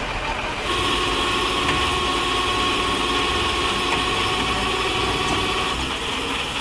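Tow truck's engine running steadily. About a second in, a thin steady whine sets in over it and stops shortly before the end.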